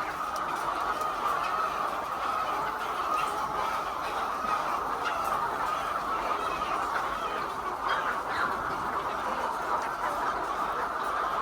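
Many laying hens clucking at once, a steady mass of overlapping calls.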